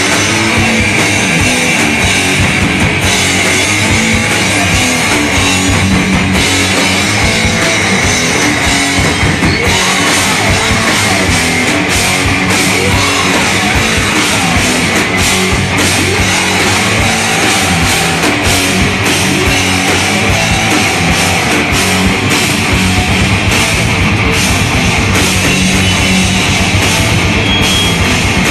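Rock band playing live and loud: a drum kit pounded hard under electric guitars, steady with no breaks.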